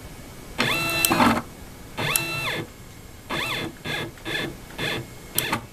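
Stepper motor of the CNC-converted mini mill jogging the X-axis table in seven short moves, each a whine that rises in pitch, holds and falls away, the last few moves shorter. A few sharp clicks are heard among the moves.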